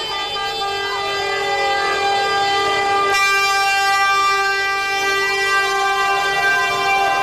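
Horns sounding in long unbroken blasts, several notes at once, in celebration; the horn notes change abruptly about three seconds in.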